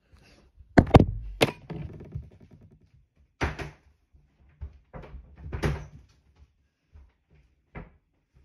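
Handling knocks and thumps as a phone camera is set down and moved on a table. Two sharp knocks about a second in are the loudest, followed by softer knocks and scrapes every second or two.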